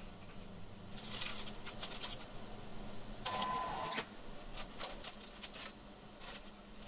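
Dry crushed-chip crumb coating rustling and crackling as hands press a sausage roll into it. About three seconds in comes a louder short clatter with a brief tone, then a few scattered sharp clicks.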